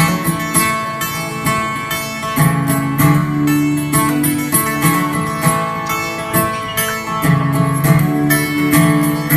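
Guitar strummed in a steady rhythm, playing the instrumental intro of a song before the vocals come in.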